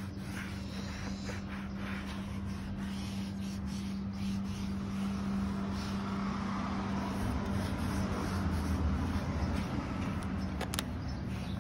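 A steady low machine hum with a rumble underneath runs throughout, with soft rubbing of a foam applicator pad on plastic car trim in the first few seconds and a single sharp click near the end.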